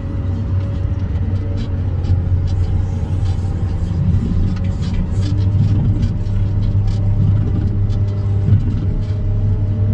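Wheel loader's diesel engine running steadily under load, heard from inside the cab, with a low hum and a steady whine above it, and light rattles and clicks as the machine carries a raised bucket of gravel.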